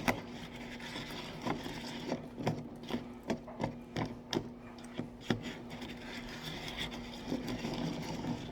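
Metal chopsticks stirring and scraping rice cakes in a microwave cup: irregular clicks and scrapes, a few a second, over a steady low hum.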